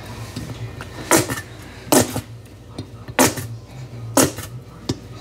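A nearly empty bottle of barbecue sauce shaken hard upside down to get the last of the sauce out, giving a sharp knock about once a second, four times.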